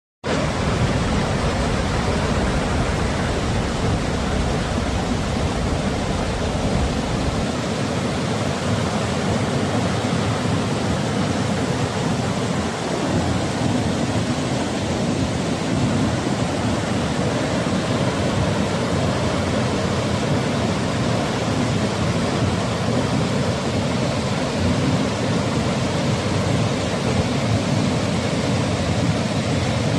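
Victoria Falls, the Zambezi River pouring over the cliff into the gorge, in a dense, steady rush of falling water. Its deepest rumble drops away about seven seconds in.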